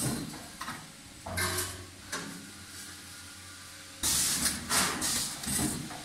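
Dolzan D150 vertical form-fill-seal packaging machine running through its bagging cycle: short bursts of hiss come a few times, each with a low hum under it, and the longest lasts about a second near the end, over a steady machine background.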